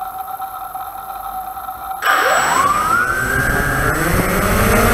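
Walkera Tali H500 hexacopter's electric motors and propellers spinning up about two seconds in: a rising whine that levels off into a steady drone, over a steady high tone heard before the start.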